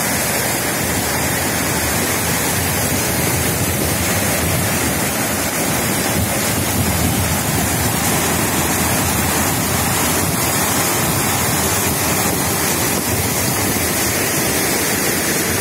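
Swollen, muddy torrent stream in flood, rushing through a narrow concrete channel: a steady, loud rush of water.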